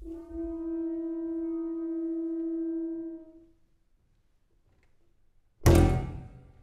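A single wind-instrument note held steady for about three seconds and fading out, then a short silence, then a sudden loud accent from the full ensemble near the end that rings away.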